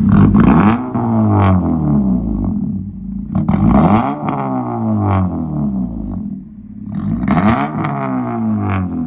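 A 2009 Honda Civic's four-cylinder engine running through a straight-piped exhaust (muffler removed, 6-inch tip), revved in three blips while parked. Each time the note climbs and falls back toward idle: at the start, about four seconds in, and about seven and a half seconds in.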